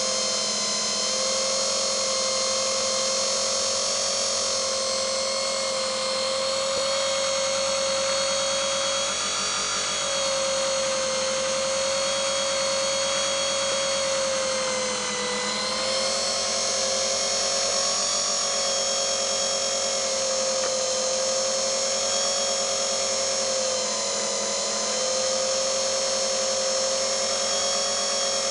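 Small brushed collector motor spinning at high speed, giving a steady high whine with overtones. The pitch sags briefly three times as the speed wavers.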